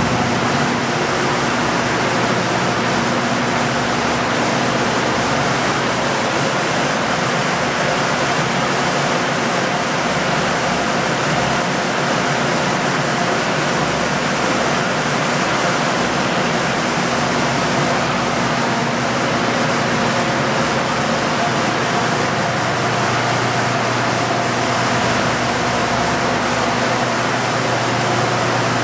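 Loud, steady rushing noise with a low hum underneath, from a hydroelectric dam's water turbines and generators running.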